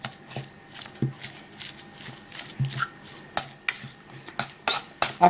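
A fork mashing drained salmon in a stainless steel bowl: irregular clicks and scrapes of the fork against the metal, coming more often in the second half.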